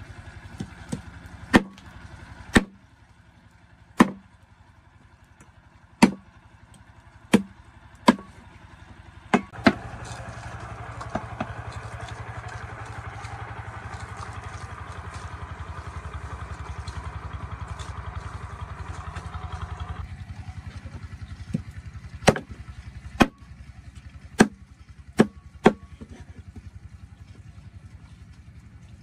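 Sharp single chopping blows, one every second or two, in two runs. Between them a steady rushing noise with a low hum runs for about ten seconds and cuts off suddenly.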